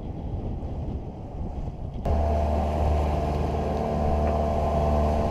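Wind and sea noise aboard a sailboat under way, then a sudden switch about two seconds in to the steady low drone of the boat's engine running.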